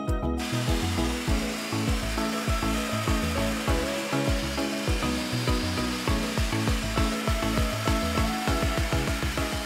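Background music with a steady beat, joined about half a second in by a steady rushing noise that runs under it.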